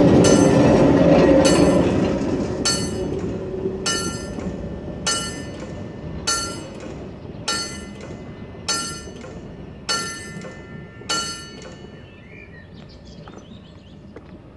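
Level-crossing bell ringing, one clear strike about every 1.2 seconds, stopping about eleven seconds in. Under it a narrow-gauge electric railcar runs past over the crossing, loud at first and fading away within the first four seconds.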